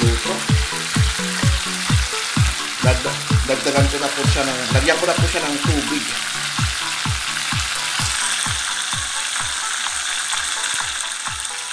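Chicken pieces sizzling in oil with garlic and ginger in a frying pan, the sizzle growing brighter in the second half. Background music with a steady kick-drum beat a little over twice a second and a short melody in the middle runs under it.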